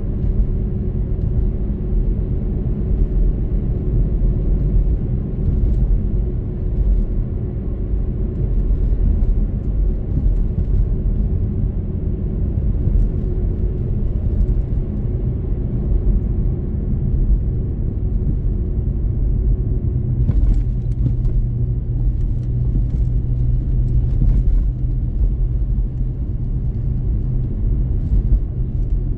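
Car driving steadily along a wet country road: a continuous low rumble of road and engine noise, with a few faint ticks about two-thirds of the way through.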